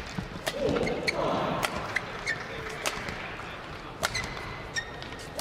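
Badminton rally: rackets strike the shuttlecock about once a second, with shoes squeaking on the court between the shots.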